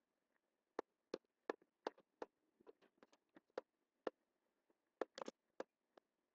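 Computer mouse button clicking: about fifteen sharp, faint clicks at irregular intervals, with a quick cluster about five seconds in.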